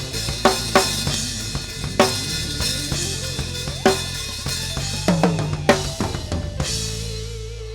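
A live band playing, the drum kit loudest with snare, kick and cymbal hits over steady bass notes. Near the end the drumming stops and a held note with a wavering vibrato rings on.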